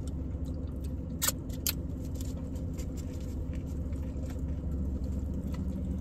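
Steady low hum of a car's idling engine heard inside the cabin, with a few short clicks in the first two seconds from a fork, sauce cup and food being handled.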